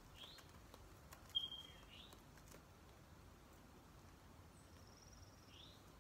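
Near silence with a few faint, short bird chirps. The clearest is a brief high whistle about a second and a half in, with quick rising chirps before and after it.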